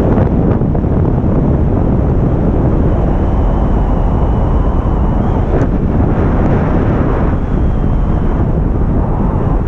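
Loud, steady rushing and rumbling like wind buffeting the microphone, with a few faint clicks.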